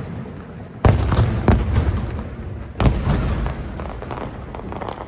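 Aerial firework shells bursting overhead: a loud bang about a second in, a sharp crack soon after, and another bang near three seconds, each trailing off in a low rumbling echo, with a few smaller pops near the end.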